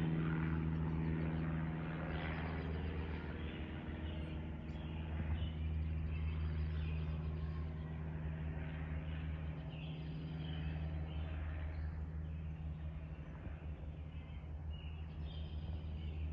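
Low steady drone of a passing aircraft, its higher tones fading over the first few seconds, with birds chirping.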